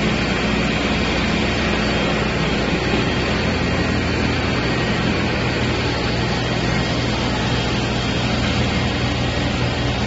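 A concrete floor grinder working a concrete floor while an industrial three-phase dust extractor runs on its hose, drawing off the dust. Together they make a steady motor hum under a rush of air and grinding noise, even throughout.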